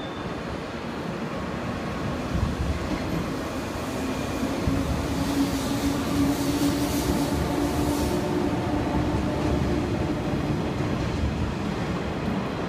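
A JR Kyushu 415 series AC/DC electric multiple unit running past along a station platform: wheels rumbling on the rails under a steady electric hum. It grows louder a couple of seconds in and is loudest as the cars go by close, with a hiss in the middle as they pass.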